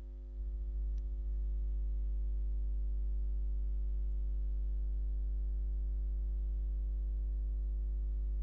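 Steady electrical mains hum, a low buzz with a ladder of overtones, that steps up in level about half a second in and then holds steady. A single faint click about a second in.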